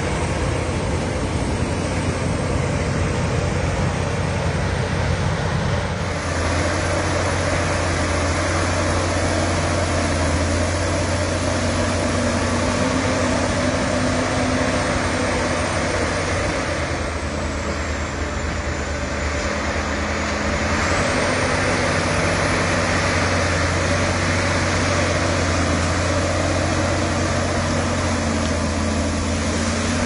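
TG 120 crawler bulldozer's diesel engine running steadily as the machine pushes a mound of earth with its blade, easing slightly for a few seconds a little past halfway.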